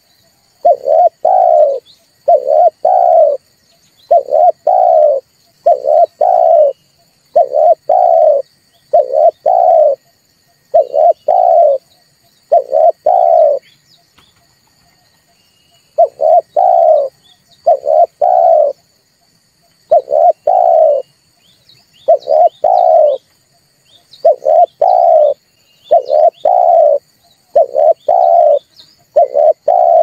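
A dove cooing: a low two-note coo phrase repeated over and over, about every one and a half to two seconds, with a break of about two seconds roughly halfway through.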